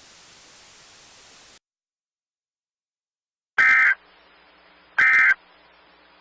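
Static hiss that cuts off about a second and a half in; after a pause, two short, loud screeching bursts of Emergency Alert System digital data tones, about a second and a half apart. Bursts this short are the end-of-message code that closes an alert.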